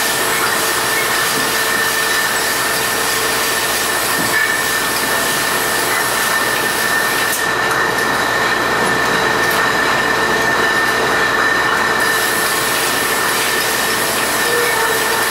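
ALTEC PVN 20/6 monoblock filler and six-head roll-on capper running with glass bottles: dense, steady machine clatter with a steady high whine over it.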